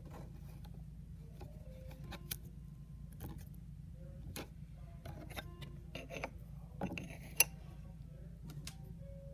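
Scattered light clicks and taps from fingers handling a lump of putty and a plastic stamp on a wooden board, over a low steady hum, with one sharper click about seven seconds in.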